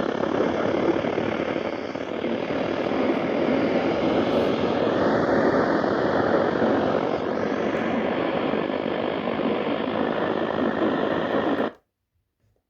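Loud, steady radio static hiss drowning out the weather broadcast, cutting off suddenly near the end.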